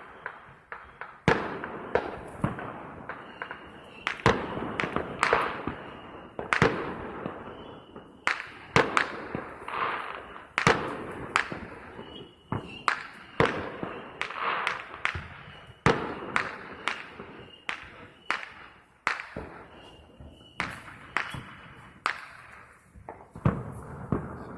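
Fireworks going off in a long, irregular run of sharp bangs and pops, at times several a second, each with an echoing tail.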